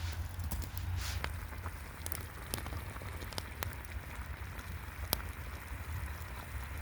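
Campfire crackling, with irregular sharp pops over a steady hiss and a low rumble.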